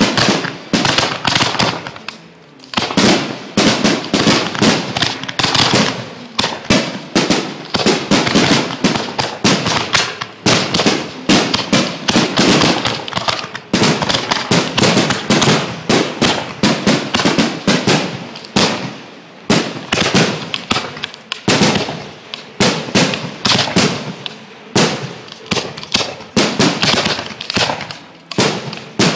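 Fireworks display going off in rapid, continuous volleys of sharp bangs, several a second, each trailing into crackle and echo, with brief lulls about two seconds in and again about three quarters of the way through.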